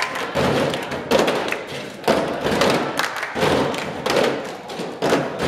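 Cup game played by a group around a table: clear plastic cups thumped and tapped on the tabletop and hands clapping in a repeating rhythm. Many players overlap, with a louder thump about once a second.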